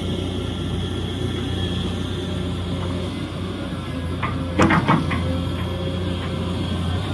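Excavator engine running steadily at a low hum, with a short cluster of metallic clanks about four and a half seconds in.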